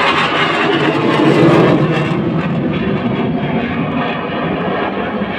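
Jet noise from a delta-wing fighter jet flying an aerobatic pass. A steady, loud noise swells to its peak about one to two seconds in, then eases slightly.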